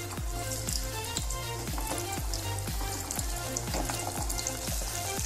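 Flour-coated chicken wings deep-frying in hot oil in a pot, a steady bubbling sizzle with crackles as each piece goes in. Background music with a steady low beat plays underneath.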